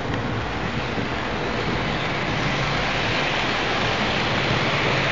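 H0 scale model trains running on the layout's track: a steady rolling rumble and hiss of small metal wheels on the rails, growing slightly louder toward the end.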